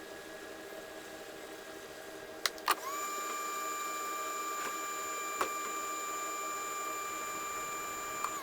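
A hot air rework station's blower starts after two clicks, its motor whine rising briefly as it spins up, then holding a steady high pitch for about five seconds before it cuts off, over a low steady hum.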